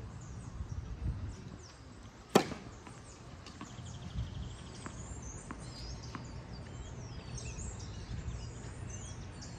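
A tennis racket striking the ball once, a sharp pop with a short ring, about two seconds in, followed by a few faint knocks of the ball. Birds chirp in the second half.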